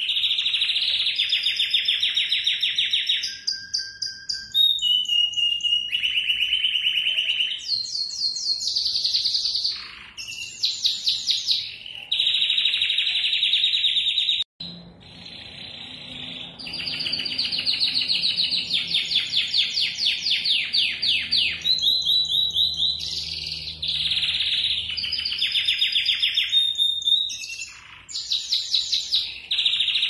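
Domestic canary singing a long, continuous song of rapid high trills and rolls, one phrase running into the next with little pause. A sudden brief break interrupts the song about halfway through.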